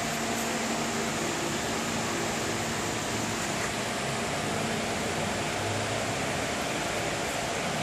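A steady machine hum with an even hiss and a few fixed tones, unchanging throughout.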